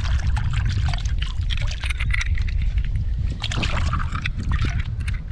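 Seashells being swished and rinsed by hand in a shallow pool of water, with irregular splashing and sloshing, over a steady low rumble.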